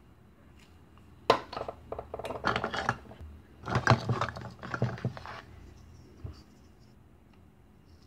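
Hard plastic toy food pieces clattering and knocking against each other in a plastic bowl as hands rummage through them: a sharp knock about a second in, two spells of clatter, and a single knock near the end.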